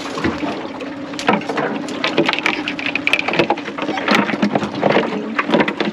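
Irregular knocking and clattering of a wire-hoop crab net against an aluminium boat and a plastic tub as blue swimmer crabs are shaken out of it, over a steady low hum.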